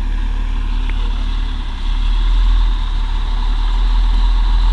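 A vehicle engine idling with a steady low rumble, growing a little louder about two seconds in.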